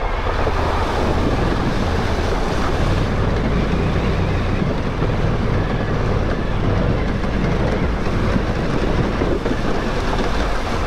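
Adventure motorcycle riding through a shallow, rocky river ford: its engine runs steadily under the rush and splash of water thrown up by the wheels, with wind noise on the microphone.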